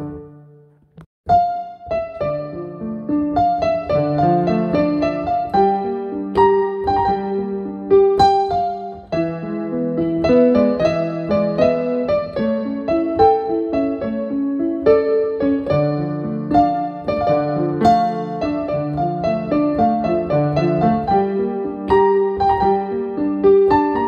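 Digital piano played by hand: a flowing piece of chords and melody. The playing breaks off briefly about a second in, then carries on without a stop.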